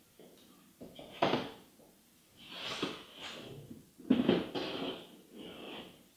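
Handling noise of shoes and shoeboxes on a table: two sharp knocks, about a second in and again about four seconds in, as things are set down, with cardboard and paper rustling in between.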